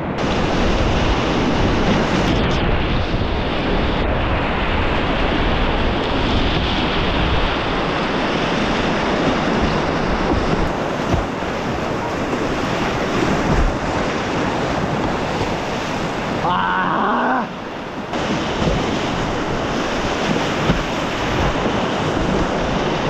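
Loud, steady rush of river whitewater around a kayak running a rapid.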